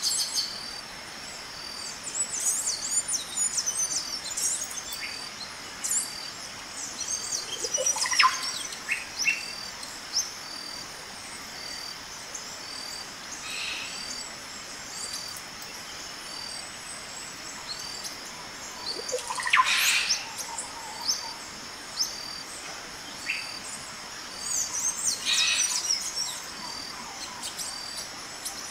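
Outdoor ambience of birds chirping and calling, over a high insect call that pulses evenly about twice a second. Now and then a louder call falls steeply in pitch, twice standing out above the rest.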